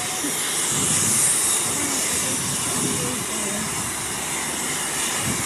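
Steam locomotive venting steam in a loud, steady hiss.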